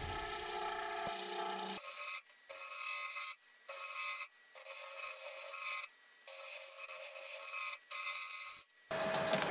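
Negative rake scraper shearing the outside of a spinning wooden bowl on a wood lathe: a steady rasping scrape with a faint lathe whine. From about two seconds in the sound thins and cuts out briefly several times.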